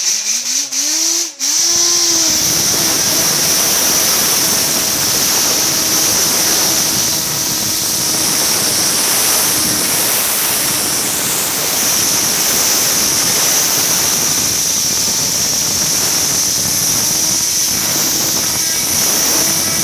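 Pressurized cleaning jet blowing with a loud, steady hiss and a faint hum beneath it. It starts up after a few short stop-start spurts about a second and a half in.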